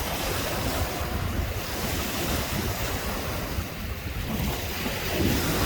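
Pacific Ocean surf washing onto the beach, with wind buffeting the microphone; the wash swells louder near the end.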